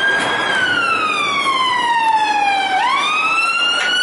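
Police siren in a slow wail: a single tone that falls steadily for about two and a half seconds, then sweeps back up quickly and keeps climbing, over a steady hiss.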